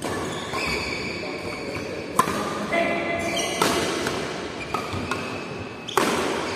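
Badminton rally: sharp cracks of rackets striking the shuttlecock, three of them about one and a half to two and a half seconds apart, the last the loudest.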